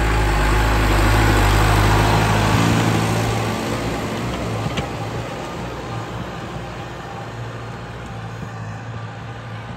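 Case JX100 MaxPro tractor's diesel engine running steadily as the tractor pulls a land roller over tilled soil. It is loudest about a second in as it passes close, then fades as it drives away.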